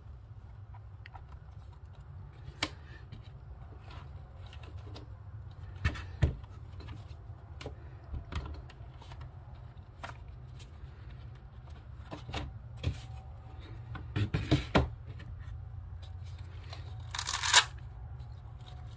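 Unboxing handling noises: scattered clicks and knocks from the hard plastic pistol case, with foam, paper leaflets and a leather holster being handled. A louder half-second burst of rustling noise comes near the end, over a steady low hum.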